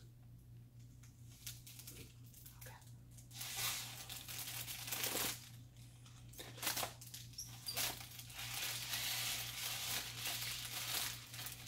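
Mylar foil letter balloon crinkling and rustling as it is blown up through a straw and handled, in two long stretches, the second longer.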